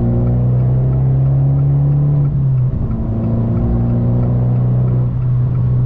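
Abarth 595 Turismo's turbocharged 1.4-litre four-cylinder engine pulling hard under acceleration, its revs climbing, then dropping briefly about two and a half seconds in as it shifts up, and climbing again.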